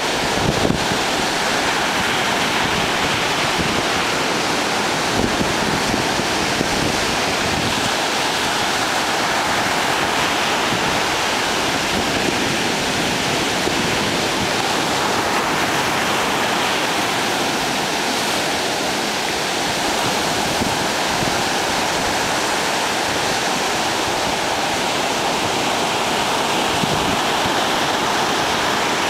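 Atlantic surf breaking on the beach and around a rock jetty, a continuous wash of whitewater noise with no separate crashes standing out. The surf is higher than normal, stirred up by a tropical storm.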